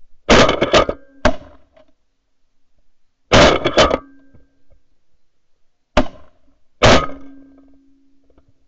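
Shotgun blasts from two hunters firing into a flock of decoying snow geese. A quick string of shots comes about a second in and another around three and a half seconds in, then two single shots near six and seven seconds.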